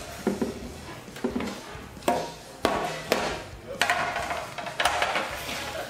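Dishes, trays and utensils knocking and clattering on a table: a string of about seven sharp, irregular knocks with rattling in between.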